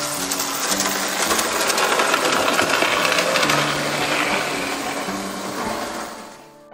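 Three-rail O-gauge toy steam locomotive running along tinplate track: a steady motor whir and wheel clatter, fading out near the end. Low background music notes play underneath.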